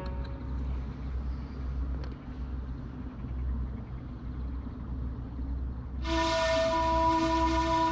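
Steady low rumble of outdoor background noise, then about six seconds in a single-pitched horn sounds and holds steadily for about two and a half seconds.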